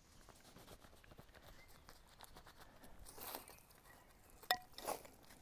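Faint rustling and footstep noises of a person moving about and handling gear, with a soft rustle about three seconds in and a couple of sharp clicks about four and a half seconds in.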